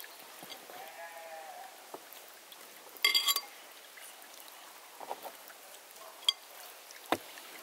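A bleating farm animal calls once, a short wavering bleat about a second in. About three seconds in comes a brief, loud clatter of clicks with a ringing note, and a few single sharp taps follow later.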